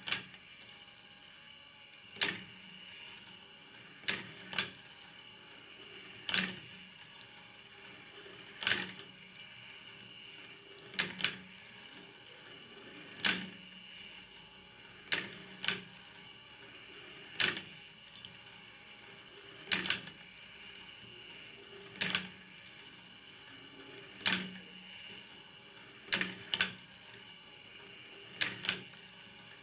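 Plastic marble-run machine at work: glass marbles clack sharply against the plastic parts about every two seconds, sometimes two clacks in quick succession, over a faint steady hum.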